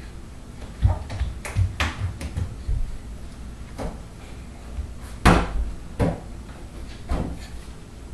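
A toddler bumping and patting against a door and wall, heard as a string of irregular knocks and thumps, the loudest about five seconds in.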